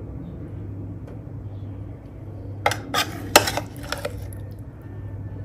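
A metal serving spoon clinking and scraping against a bowl of pork-trotter pickle, a quick run of clinks about three seconds in, over a steady low hum.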